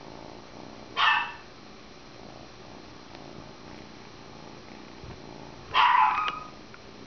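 A dog barking twice in the background: a short bark about a second in and a longer one near six seconds, over a kitten's steady purring.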